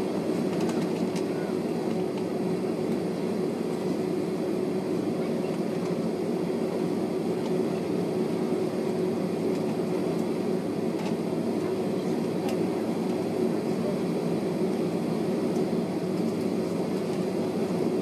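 Jet airliner cabin noise while taxiing: the engines' steady hum with one held tone running through it, heard from inside the cabin.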